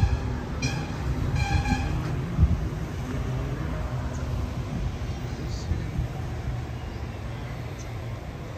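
A horn sounds three short toots in the first two seconds, the last one longest, then a steady low engine rumble carries on.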